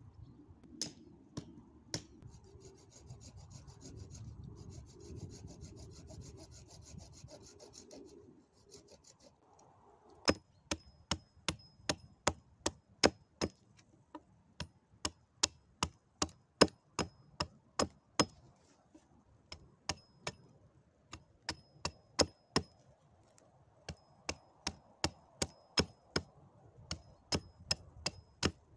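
Soft rubbing and rustling for the first several seconds. Then a small hatchet chops at a thin dry branch, with sharp wooden knocks about two a second in runs with short pauses. Many strikes carry a brief high ring.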